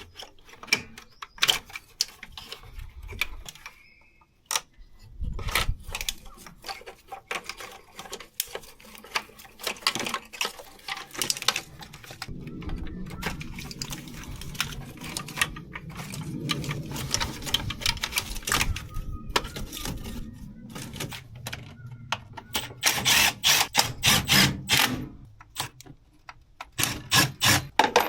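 Hand tools clicking and clattering against metal engine parts in rapid, irregular strikes, with a denser, lower-pitched stretch of mechanical noise in the middle.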